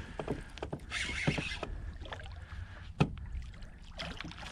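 Handling noise from a plastic fishing kayak and rod over a low rumble of water and wind: scattered light knocks, the sharpest about three seconds in, and a short hiss a little after one second.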